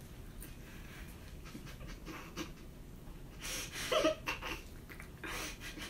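A person breathing hard through the mouth in a few heavy puffs after eating an extra-spicy potato chip, with a short vocal sound about four seconds in.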